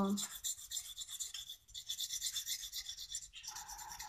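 Orange coloured pencil scratching fast back and forth across the surface of a blank bauble, several strokes a second, with a brief pause about one and a half seconds in.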